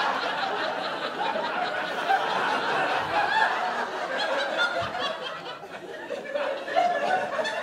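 Audience laughing in a theatre, many voices at once, a long round of laughter that slowly dies down.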